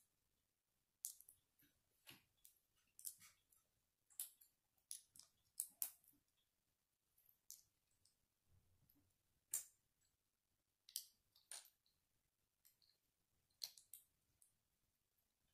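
Small plastic Lego pieces clicking as they are handled and pressed together: sharp, irregular clicks, several in quick succession in the first half and fewer later, with quiet gaps between.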